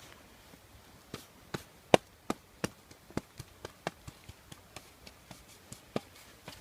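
A run of sharp, short taps or knocks, starting about a second in and coming two to four a second; the loudest is near two seconds in and they grow fainter towards the end.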